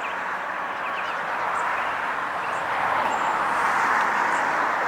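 A steady hiss of road traffic that slowly swells louder, with faint chirps of small birds scattered through it.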